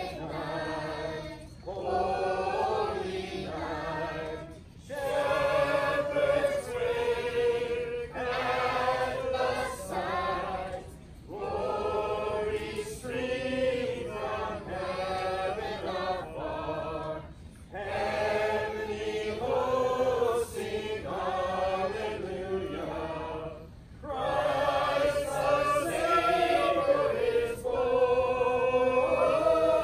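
A large group of carolers singing together from song sheets, in sung phrases a few seconds long with short breaks for breath between them.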